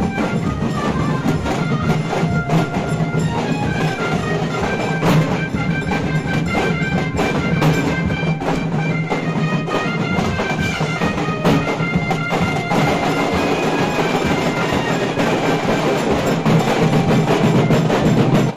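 Music: a wind-instrument melody over steady drums and percussion, cutting off abruptly at the end.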